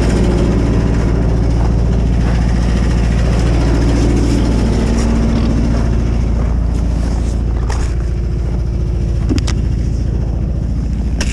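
A vehicle engine running steadily, with a few short clicks or knocks near the end.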